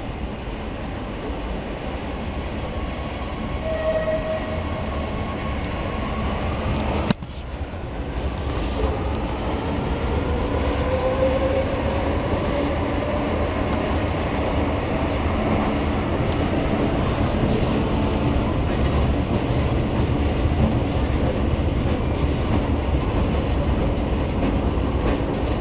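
Metro train rumbling through the station, with a whine that rises in pitch over several seconds as it gets under way. A sharp click comes about seven seconds in, and the rumble grows louder after it.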